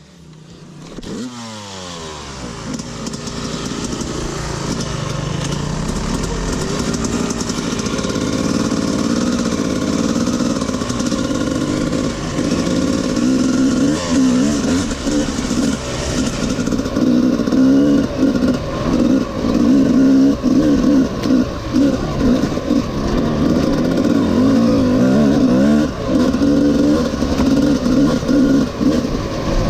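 HM CRE 250's single-cylinder two-stroke engine running. Its revs sweep up about a second in, then rise and fall again and again with the throttle through the second half.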